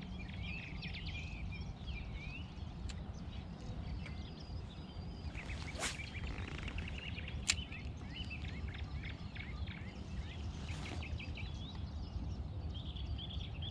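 Songbirds chirping and singing throughout over a steady low outdoor rumble. A brief swish about six seconds in, as a spinning rod is cast, and a couple of sharp clicks.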